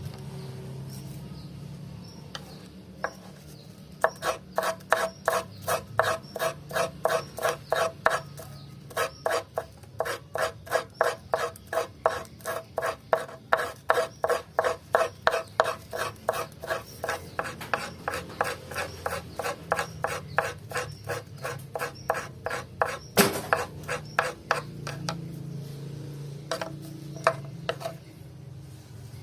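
A hand file rasping on wood in quick, even back-and-forth strokes, about three a second, with a short break about eight seconds in. A single sharp knock comes about twenty-three seconds in, followed by a few last scattered strokes.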